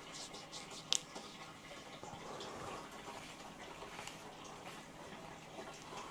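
Faint sounds of a houseplant being watered and handled: soft trickling and light rustling, with one sharp click about a second in.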